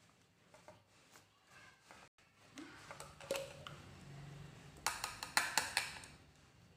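A small plastic blender jar and blade cap being handled, with faint clicks and rubbing. About five seconds in comes a quick run of sharp taps as blended papaya pulp is knocked out of the jar and cap into a bowl.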